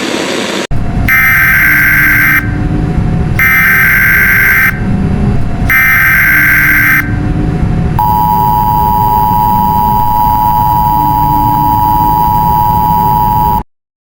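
Emergency Alert System broadcast alert opening: a short blast of static, then three screeching digital header data bursts about a second long each, then the steady two-tone EAS attention signal held for about five and a half seconds over hissy static, cutting off suddenly near the end.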